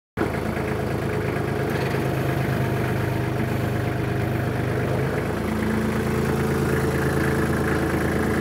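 Tractor engine idling steadily, its note shifting slightly about five seconds in.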